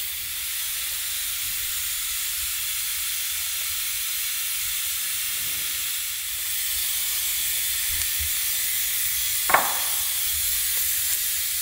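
A steady hiss, strongest in the high range, with a single sharp knock about nine and a half seconds in.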